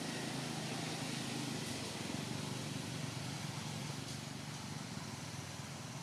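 A distant motor vehicle running, a low hum that is strongest over the first few seconds and then slowly fades, over a steady outdoor hiss.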